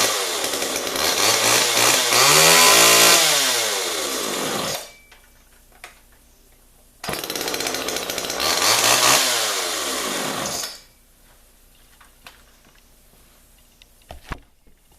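Homelite two-stroke chainsaw revving up and back down, then stopping about five seconds in. It starts again abruptly about seven seconds in, revs up and down once more, and stops near eleven seconds.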